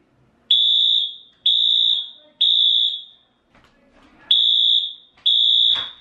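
Fire alarm sounding in the temporal-three evacuation pattern: high-pitched beeps about half a second long in groups of three, with a pause between groups. A sharp knock sounds near the end.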